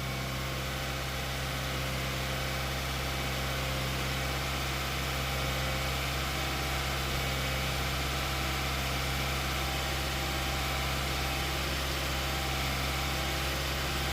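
Honda Fit four-cylinder petrol engine held steady at about 2000 rpm.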